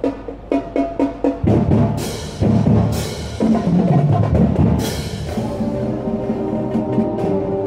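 Marching band with sousaphones playing live: a few quick drum strokes, then the brass comes in loud about a second and a half in, with sharp accented hits, before settling into held chords.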